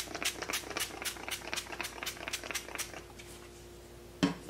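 Mario Badescu facial spray's pump mister spritzed over and over in quick succession, about five short hissing sprays a second for about three seconds. A single thump follows near the end.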